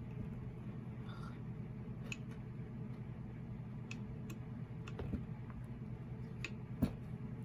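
Scattered small clicks and taps from hands working an eyelet-setting hand tool and metal eyelets, with one sharper click near the end, over a steady low hum.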